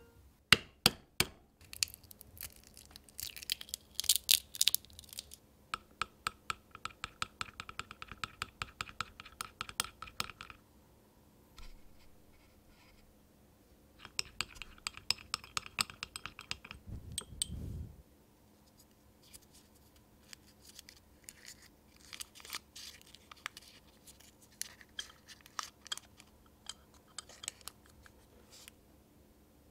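A miniature whisk clinking rhythmically against a small ceramic bowl as beaten egg is whisked, in two spells with a short pause between. It opens with a few sharp taps and crackling, and in the last third gives way to soft crinkling of a paper butter wrapper being unfolded.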